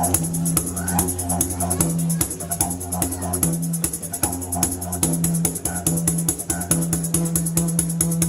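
Live Irish music: a steady low drone that shifts pitch now and then, under a fast, even percussive beat and a faint melody.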